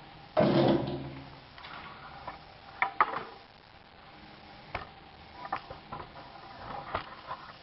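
A corded drill fitted with a 68 mm core bit for socket-box holes gives one short burst of its motor, then the drill and bit are handled with scattered clicks and knocks.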